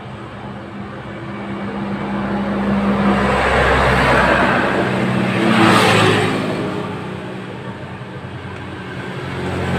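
A motor vehicle engine passing by. It swells up to a peak about six seconds in and fades, then a second passing vehicle rises near the end.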